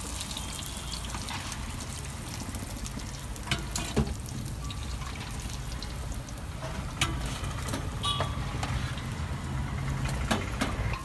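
Momos deep-frying in hot oil in an iron wok, a steady sizzle over a low steady hum, with a few sharp metal clinks as a perforated skimmer scrapes and knocks against the pan.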